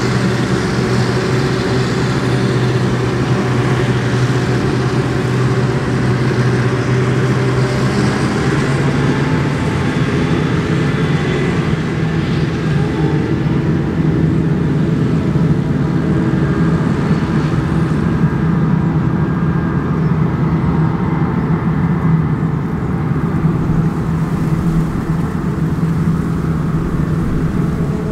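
Claas Jaguar 840 self-propelled forage harvester chopping maize under load, its engine and chopper running in a steady drone together with the tractor pulling the trailer alongside. The sound grows duller in the second half as the machines move off along the crop.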